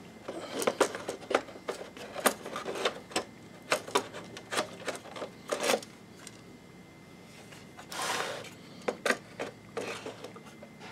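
Quick clicks and knocks of a projector lamp module being handled and pulled out of its bay: plastic and metal housing parts tapping and scraping, with a brief rustle about eight seconds in.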